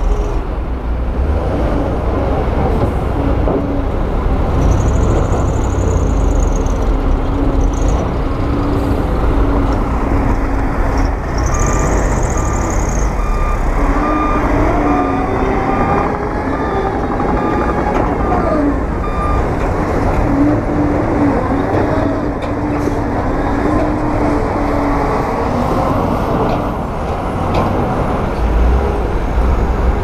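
Heavy diesel construction machinery running under varying load, its engine pitch shifting up and down over a deep rumble. Two short high hisses come about 5 and 12 seconds in, and a faint repeating beep runs through the middle.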